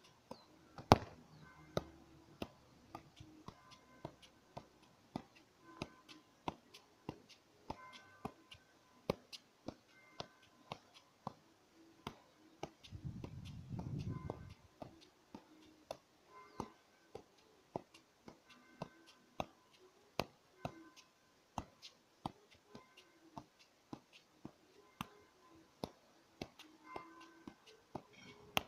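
Soccer ball being juggled, each touch a sharp tap, about one and a half touches a second in a steady rhythm, with a brief low rumble near the middle.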